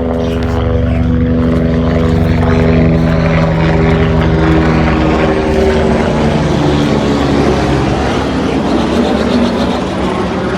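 A loud motor engine drone with a steady pitched hum. About halfway through the pitch shifts and the sound turns into a denser, noisier roar.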